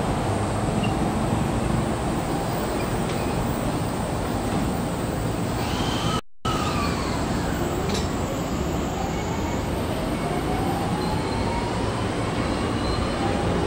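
JR East electric commuter train pulling out of the platform, its running noise steady throughout. About eight seconds in, the traction motors' inverter whine sets in and climbs steadily in pitch as the train gathers speed. There is a brief break in the sound just after six seconds.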